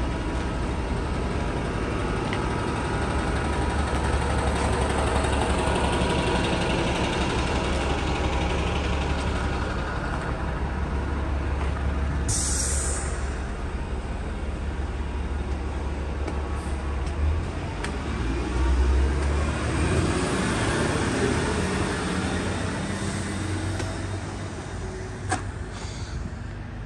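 A heavy vehicle's steady low rumble, with a short, sharp hiss of air about twelve seconds in and a single click near the end.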